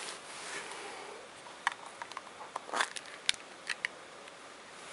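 Small hard-plastic clicks and taps from handling the clear EarPods carrying case, with a soft rustle in the first second or so. The clicks come irregularly, about eight of them, the loudest near the middle.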